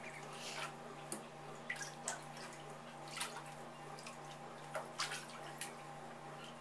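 Small, scattered splashes and drips of shallow bathtub water as Pekin ducklings move and preen in it, irregular, about one or two a second, over a steady low hum.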